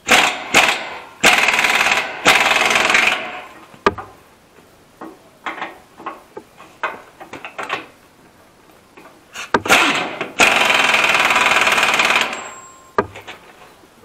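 Pneumatic impact wrench hammering on a plough bolt to undo it, in two bursts of about three seconds each: one at the start and one about ten seconds in. Sharp metallic clicks and clinks fall between the bursts.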